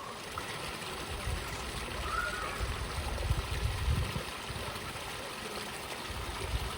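Spring water trickling and splashing at a weeping sandstone cliff, where seep water drips into a pool and a little waterfall, as a steady hiss of running water. A low rumble joins it from about a second and a half to four seconds in.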